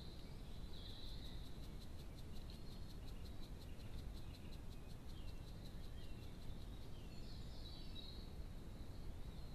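Faint steady hiss and rumble of a trail camera's microphone at night, with a run of quick faint ticks at about five a second and scattered short high chirps.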